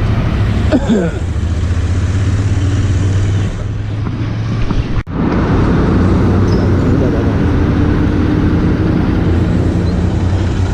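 Royal Enfield Interceptor 650's parallel-twin engine running steadily under way, with wind rushing past. The sound cuts out briefly about halfway through, then resumes.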